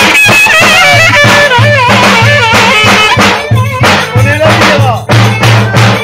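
Metal clarinet playing a fast, heavily ornamented köçek dance tune, full of trills and slides, over a steady low drum beat.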